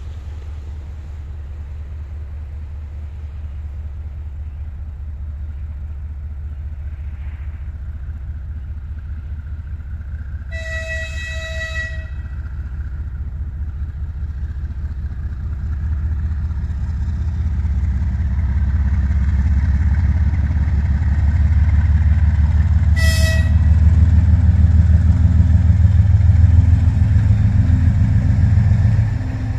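CFM TE33AC diesel-electric locomotive with a 12-cylinder GE Evolution engine approaching a level crossing and passing it. Its engine rumble grows steadily louder. It sounds its horn twice: a blast of about a second and a half about eleven seconds in, and a short toot about 23 seconds in.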